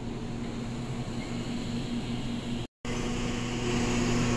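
Steady machine-like hum over a wash of noise. About two-thirds through it cuts off abruptly and resumes slightly louder and brighter.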